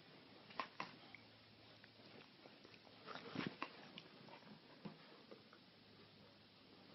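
Maltese and bulldog play-fighting: faint scuffling, taps and mouthing sounds, with a busier flurry about three seconds in.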